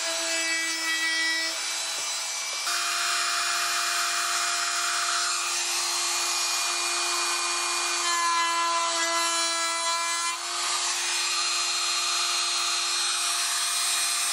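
Handheld trim router running with a steady high whine, its 1/4-inch-shank pattern bit routing MDF. A rougher cutting noise swells twice as the bit bites into the board.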